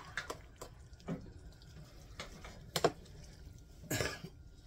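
Spaghetti in meat sauce being stirred in an enamelled pot: wet squelching with a few sharp clicks of the spoon against the pot, the sharpest about three seconds in. A cough near the end.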